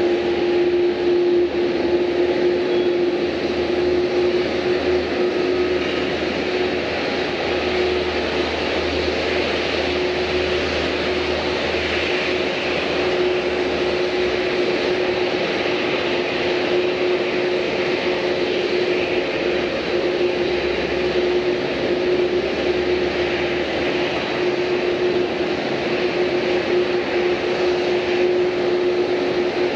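Airliner engines running steadily, a constant hum with a steady droning tone that holds level throughout.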